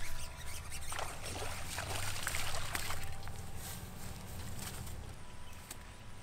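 A small hooked bass splashing at the pond surface as it is reeled in and lifted dripping out of the water, with a few sharp splashes in the first few seconds.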